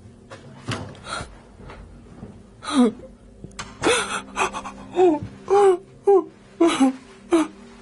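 A woman crying in gasping sobs: a string of short, breathy cries, each falling in pitch, coming faster from about three seconds in.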